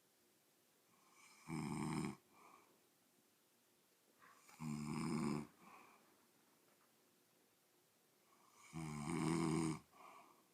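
Snoring: three loud snores about three and a half seconds apart, each followed by a short, softer sound.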